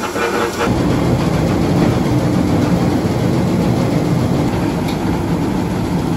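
Electric grain roller mill running, crushing barley and wheat for animal feed, with the rush and rattle of crushed grain pouring into a steel bin. The sound changes abruptly about a second in from a steadier hum to a denser, lower rumble.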